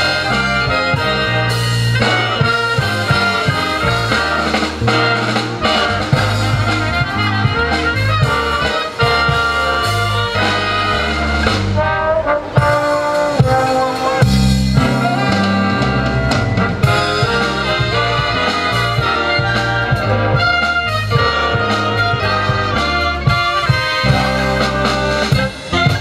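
Big band of saxophones, trumpets and trombones with drum kit playing a jazz-style number.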